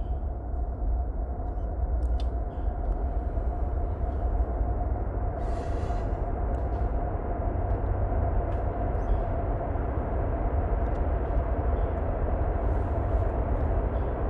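A train passing at a distance: a steady low rumble with a steady whine above it, and a few faint clicks.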